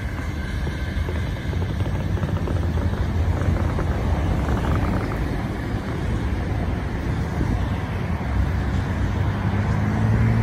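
Steady low rumble of a freight train moving away down the line. A steady low engine hum comes in near the end.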